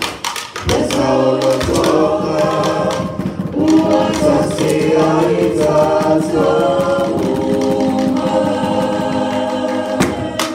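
A small group of voices singing in harmony a cappella, with no instruments. A few sharp knocks sound through the singing, one near the start and one near the end.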